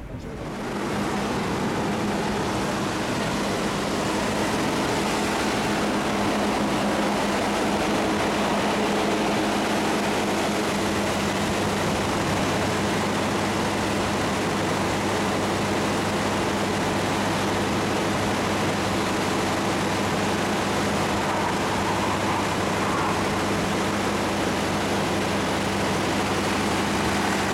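Military mobile airfield power and starting unit (APU) running: a loud, steady engine drone with an even hum underneath. A lower hum joins about a third of the way in.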